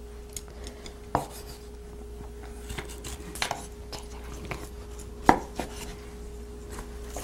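Kitchen knife cutting pan-fried pork belly on a cutting board: a few separate knocks of the blade against the board, the sharpest about five seconds in. A faint steady hum runs underneath.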